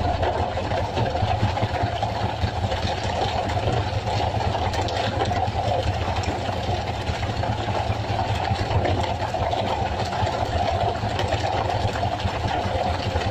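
Fishing boat's engine running steadily, a constant low drone with a mid-pitched hum over it.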